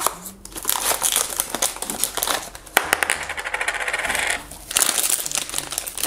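Crinkling and rustling of a foil blind-bag packet as it is drawn out of its cardboard blind box and then pulled apart to tear it open, with a sharp crackle about three seconds in.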